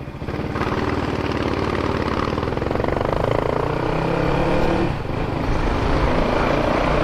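Honda Twister 250's single-cylinder engine through a Dore aftermarket exhaust, its silencer freshly repacked with glass wool, accelerating hard from about half a second in. It dips briefly about five seconds in, then pulls strongly again.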